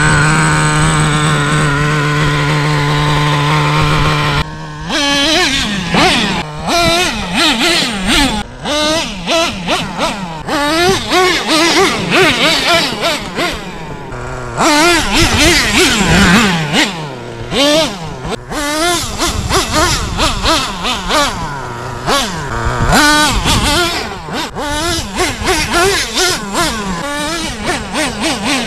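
Traxxas T-Maxx RC monster truck's nitro glow engine idling steadily, then, from about four and a half seconds in, revving up and down in repeated short throttle bursts as the truck is driven.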